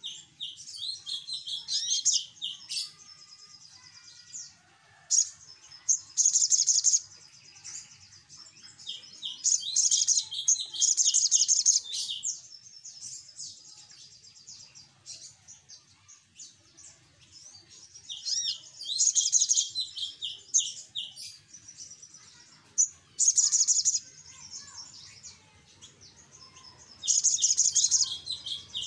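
Male olive-backed sunbird singing: loud bursts of very high, rapid twittering chatter, each lasting one to two seconds, repeated about six times with softer chips between.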